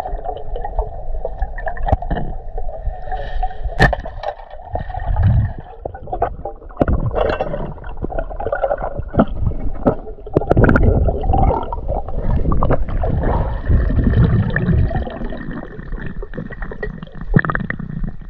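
Water sloshing and gurgling close to the microphone, with many irregular knocks and splashes.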